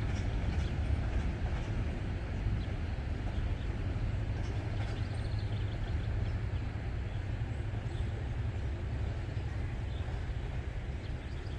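Freight train cars rolling past on the mainline, a steady low rumble of wheels on rail, easing slightly near the end.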